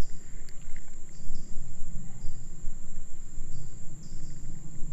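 Insects calling by the creek: short chirps repeating about once a second over a steady high-pitched buzz, with a low rumble underneath.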